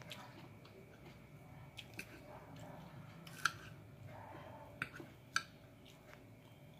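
Metal knife and fork cutting a fried cream dory fillet on a plate: faint scraping with about five sharp clinks of cutlery against the plate.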